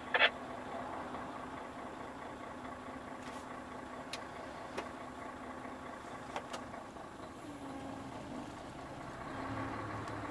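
Truck engine running steadily, heard inside the cab. A short sharp burst comes just after the start, and a few faint clicks follow through the middle.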